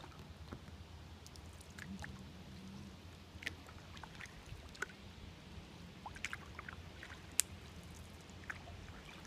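Faint scattered drips and small splashes of water around a kayak on calm water, irregular ticks a second or so apart, over a steady low rumble.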